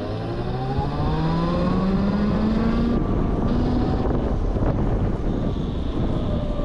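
Electric motor of a Super Soco TC-Max motorcycle whining under acceleration in its middle power level, the whine rising in pitch for about three seconds, then a shorter whine around four seconds in. Wind rushes over the microphone throughout.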